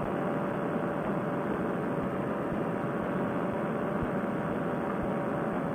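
Fresh Breeze Monster two-stroke paramotor engine and propeller running steadily at cruise power in flight, with wind rush, heard through a narrow-band helmet headset microphone.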